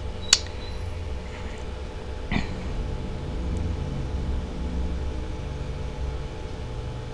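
Steady low background rumble with a faint constant hum, broken by two short clicks: one about a third of a second in, a second about two and a half seconds in.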